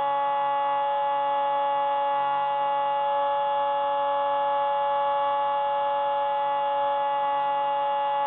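Hubsan Spyhawk FPV plane's electric motor and propeller whining at a steady throttle, picked up by the plane's onboard camera. It is one even pitch of several tones that does not rise or fall.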